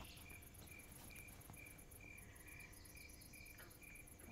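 Faint cricket chirping at an even pace, about two to three chirps a second, over an otherwise near-silent room.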